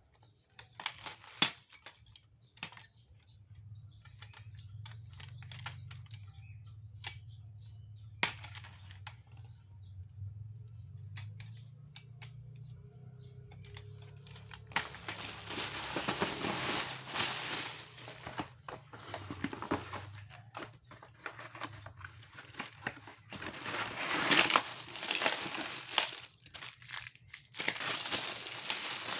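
Packaging being handled and unwrapped. Scattered sharp clicks and taps come first over a faint low hum, then from about halfway in there is continuous crinkling and rustling of the wrapping.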